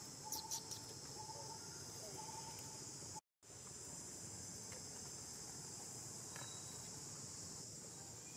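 Steady, high-pitched chorus of insects. A short note repeats about once a second over the first three seconds, and a few sharp clicks come about half a second in. The sound drops out completely for a split second a little past three seconds.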